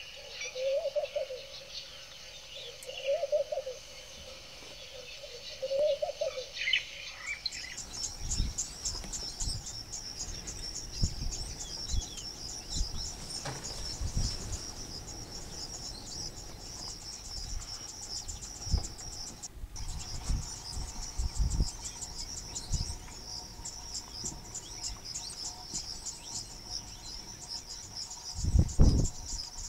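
Insects trilling in a steady, fast-pulsing high chorus, with scattered low thumps and a louder low rumble near the end. Before the trill starts, a bird gives three short rising-and-falling calls.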